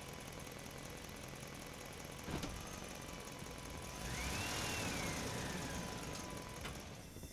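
Road traffic with an engine running steadily. About two seconds in there is a single click. From about four seconds in a vehicle grows louder, with a tone that rises and then falls, before the sound cuts off at the end.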